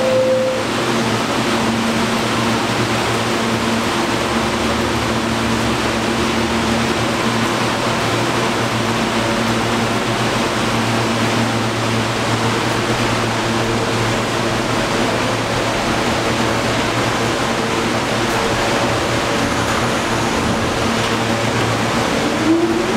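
R46 New York City subway train standing at an underground station, with a steady hum and hiss from the cars' ventilation and the station. A falling two-note chime sounds at the very start, and near the end a rising motor whine begins as the train starts to pull away.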